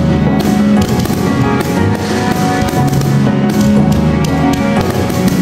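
Music laid over the footage: held, sustained chords with repeated sharp percussive hits.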